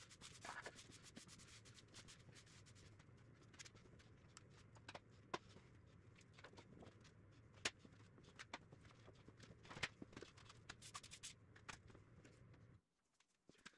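Faint scraping of a push broom on a concrete floor, then scattered light clicks and taps. The sound cuts off abruptly near the end.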